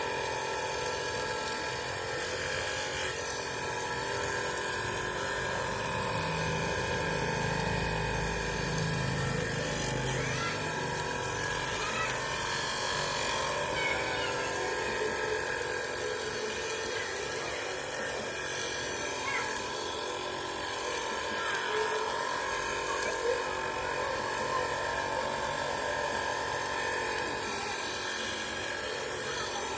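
Small high-speed electric power tool running steadily, with a high, even whine.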